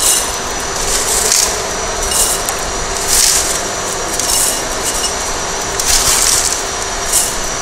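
Handfuls of coarse crushed-stone aggregate are scooped from a metal sieve pan and dropped into a cylindrical measure: gravel rattles and clatters in short bursts about every second, over a steady background hiss.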